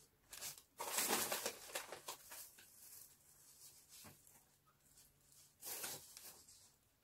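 Rustling and crinkling of grocery packaging being handled, in a few bursts, the longest about a second in and another near six seconds, with a light knock about four seconds in.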